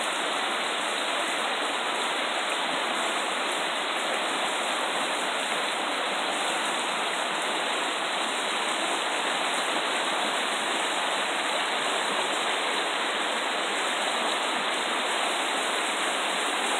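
Shallow rocky stream rushing steadily over stones in a small rapid.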